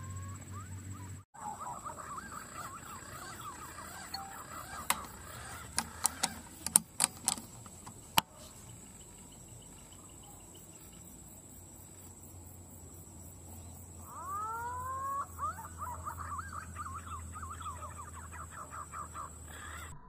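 Green pigeons calling with warbling, whistled notes in two runs of quickly repeated gliding calls, one near the start and one over the last six seconds. Several sharp clicks fall in between.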